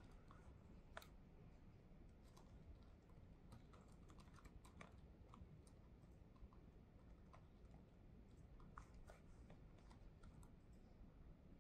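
Faint, irregular keystrokes on a laptop keyboard, over a low steady room hum.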